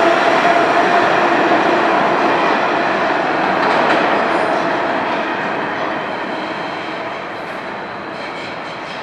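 New York City Subway (C) train pulling away from an underground station into the tunnel. Its wheels rumble and clack on the rails, with a faint motor hum that fades about a second in, and the whole sound grows steadily quieter as the train recedes.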